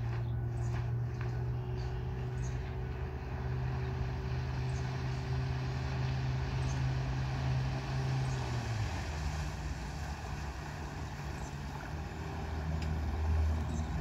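Boat engine running steadily, its note changing about nine seconds in as the engine speed changes.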